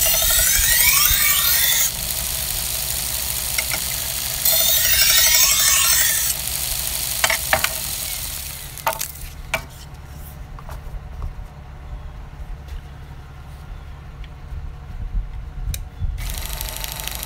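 Belt knife sharpener running while a santoku-style kitchen knife, held in a clamp jig, is ground against the moving belt twice. Each pass is a rasping hiss of about two seconds, its pitch sweeping as the edge travels across. A few sharp clicks come as the knife is set down and handled. The machine's hiss then drops away for several seconds, leaving a low hum, and comes back near the end.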